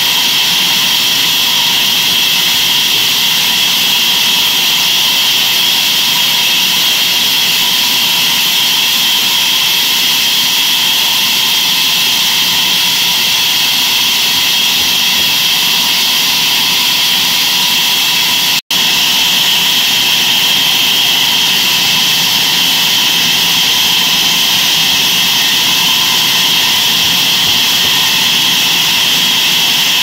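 Large band sawmill running and sawing through a walnut log: a loud, steady machine noise with a high whine and hiss that holds level throughout. It cuts out for an instant about two-thirds of the way through.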